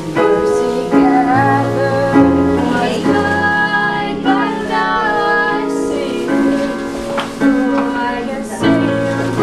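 Digital piano played in held chords, with a young female voice singing along; the chords and bass notes change about every second.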